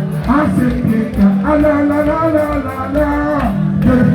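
Music: a song with a singing voice over a steady bass beat.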